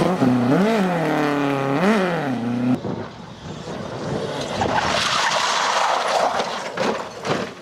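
Ford Escort Mk2 rally car's engine revving up and dropping back twice as it slides round a hairpin. After a sudden cut, a modern Ford Fiesta rally car approaches and passes at speed, with a rush of engine, tyre and gravel noise swelling about five seconds in.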